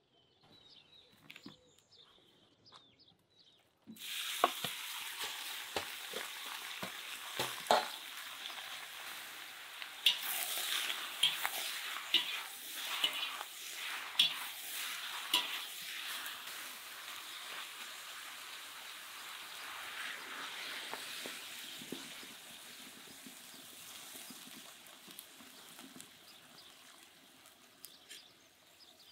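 Sliced beef heart frying in a hot cauldron. A loud sizzle starts suddenly about four seconds in, with a metal spatula clacking and scraping against the pot as the meat is stirred. The sizzle dies down near the end as the meat gives off its juices.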